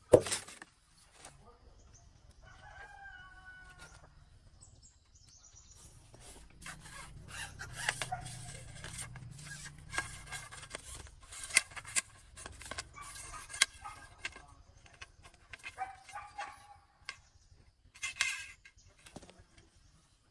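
A rooster crows once, about two seconds in. From about six seconds in comes a long run of quick, sharp knocks and taps.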